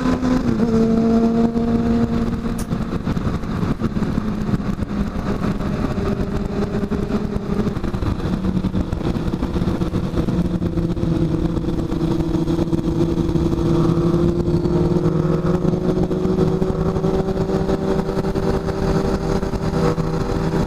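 Honda CB650F's inline-four engine running steadily at highway cruising speed, under heavy wind rush on the microphone. The engine note drops a little in pitch over the first several seconds and climbs slowly near the end.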